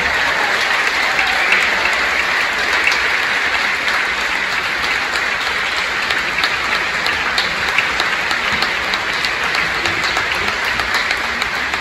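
Large audience applauding, a dense, steady clapping.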